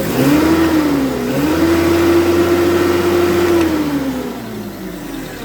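Hyundai 25L forklift engine running just after starting, now that its starter wiring is restored: the revs rise quickly, dip briefly, hold steady for about two seconds, then ease back down toward idle.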